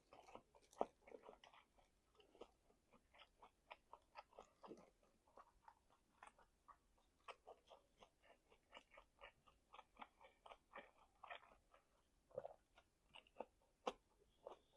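A person chewing meat: faint clicks and smacks, about two or three a second, a few of them louder.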